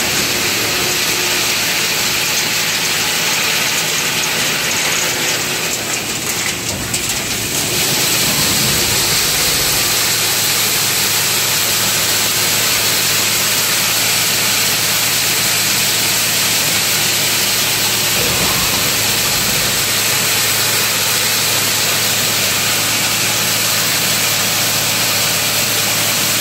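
Tenias continuous almond harvester running while harvesting along the tree row: loud, steady engine and machinery noise with a strong hiss. A steady low hum sets in about eight seconds in and holds.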